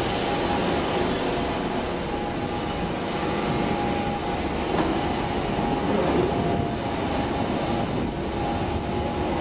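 London Underground tube train running, a steady rumble of wheels on rail with a thin, even motor whine over it.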